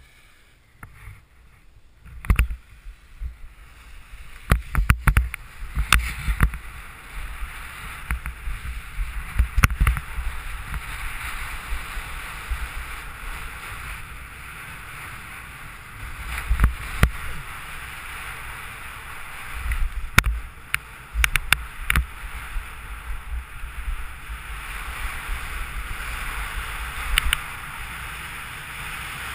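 Skis running fast over hard, bumpy snow on a speedriding descent: a steady rush of wind over the camera microphone and the scrape of the skis, with knocks and thumps each time the skis hit a bump. It starts nearly quiet and builds after about two seconds.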